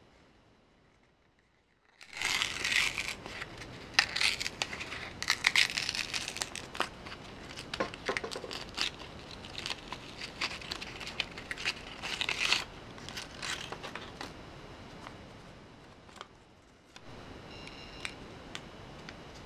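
Thin white card backing crinkling and tearing as a black Lego minifigure cape is peeled out of it: crackly rustling with many small snaps, starting about two seconds in and lasting about ten seconds, then fading to a few light clicks.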